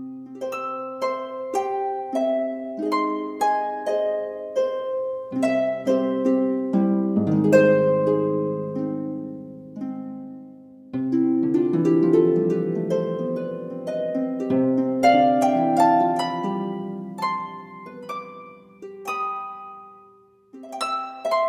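Relaxing background music of plucked harp-like notes, single notes and rolled chords that ring and fade, with a brief lull about ten seconds in.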